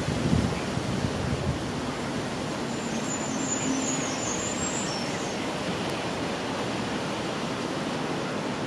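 Steady rushing background noise with no distinct events, and a brief run of faint high chirps about three seconds in.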